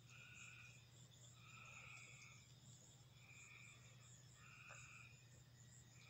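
Near silence with a faint night chorus: evenly repeated trills, about one every second and a half, each about half a second long.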